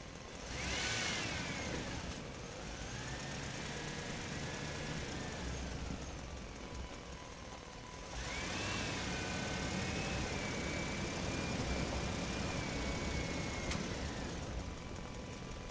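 Small electric motor whining in two runs: it spins up with a rising pitch about half a second in and runs until about six seconds, then starts again near eight seconds and holds a steady pitch until it cuts off near the end.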